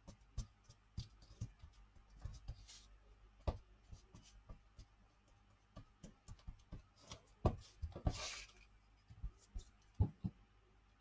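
Faint scattered taps and clicks of paper cutouts and a palette knife being handled on a desk, with two short rustles and a palette knife in a jar of matte medium near the end.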